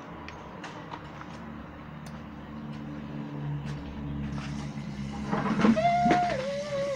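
Steady low motor hum, like a vehicle engine, slowly growing louder. A person's voice calls out loudly about six seconds in.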